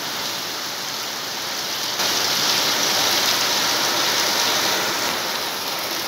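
Heavy rain pouring down, a steady hiss that grows louder about two seconds in.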